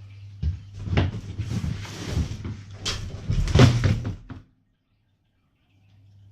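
Knocks, clatter and rustling of a cardboard bike box being handled and cleared away, with a few sharp bangs. The sound cuts off suddenly about four and a half seconds in.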